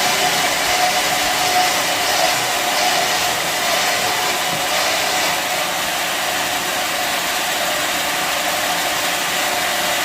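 Band sawmill running: a steady whirring noise with one constant tone held throughout and no change in pitch or level.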